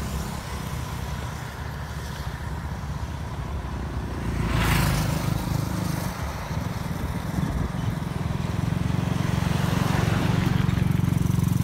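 Motorbikes passing on a two-lane highway over a steady low rumble. One rushes past close by about four and a half seconds in, and another passes more faintly near ten seconds.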